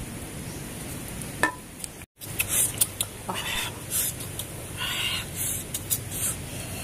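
Leaves rustling and crinkling as they are handled, with a few light clicks and taps.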